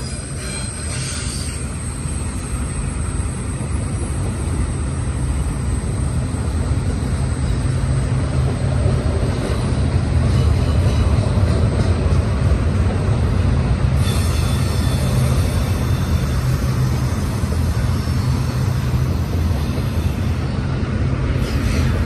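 Long freight train of empty double-stack well cars rolling past: a steady low rumble of steel wheels on rail that grows louder toward the middle. A thin, high wheel squeal comes and goes, back again about two-thirds of the way through.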